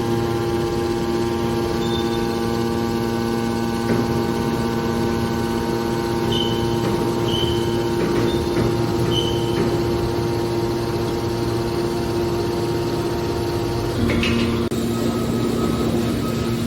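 Hydraulic scrap baler's electric motor and pump running with a steady hum. The hum's tone shifts about fourteen seconds in, with a light knock at that change, and a few short high chirps come around the middle.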